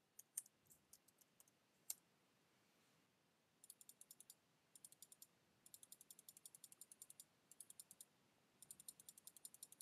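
Faint computer clicking: a few single keystrokes, then from about a third of the way in, runs of rapid mouse clicks, several a second, as an on-screen button is clicked over and over.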